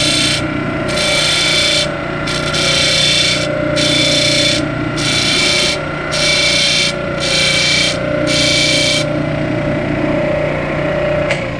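Disc sander running steadily while a TIG tungsten electrode is ground against its spinning sanding disc in short passes, about one a second, to put a point on the blunt end. The grinding passes stop about nine seconds in and the sander motor runs on, with a single click near the end.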